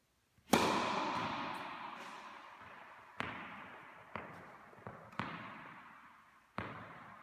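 A tennis racket strikes the ball on a serve about half a second in, a sharp crack that rings on in the large indoor tennis hall. Several softer knocks follow, tennis balls bouncing and being hit, each echoing in the hall.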